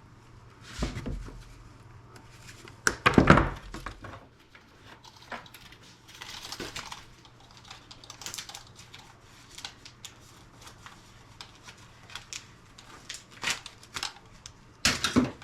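Clicks, taps and rattles of plastic and metal parts being handled while a small appliance is taken apart by hand, with a heavier knock about three seconds in.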